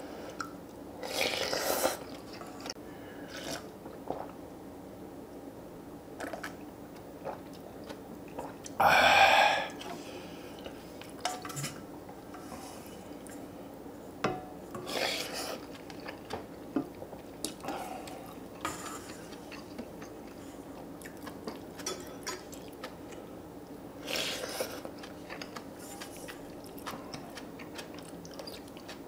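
Close-miked eating of beef short rib soup with radish kimchi: chewing, and utensils clicking against bowls. A few louder bursts stand out, the loudest about nine seconds in.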